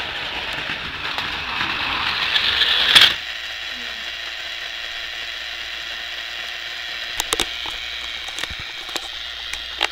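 Battery-powered Plarail toy E5 series Shinkansen running on plastic track, its small motor and gears whirring louder as it comes closer, then stopping abruptly with a sharp knock about three seconds in. A few light plastic clicks follow later.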